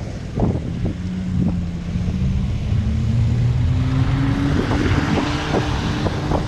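A road bicycle riding downhill on a town street: rumble and wind on the microphone, with a steady hum that rises slowly in pitch for about four seconds and then holds, and scattered short knocks.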